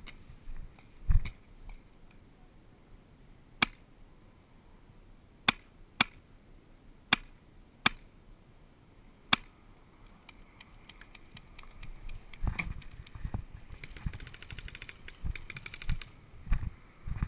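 Paintball markers firing single shots, about seven sharp pops at uneven intervals over the first nine seconds or so. This is followed by irregular rustling and knocking with a brief fast rattle near the end.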